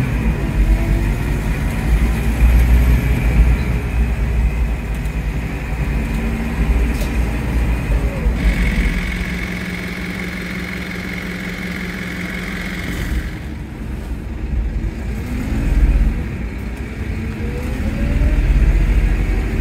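Scania K230UB OmniLink single-deck bus with a ZF Ecomat automatic gearbox accelerating, its whine rising in pitch as it gathers speed. It settles to a steady idle tone for a few seconds in the middle, then pulls away again with another rising whine near the end.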